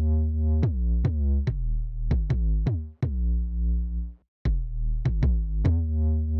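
Synth sub-bass preset from Arturia's Trap Drop pack, a hard and punchy sub-type bass, playing a trap pattern. Deep held notes each start with a quick downward pitch drop, over sharp drum-machine hits. The sound cuts out briefly about four seconds in.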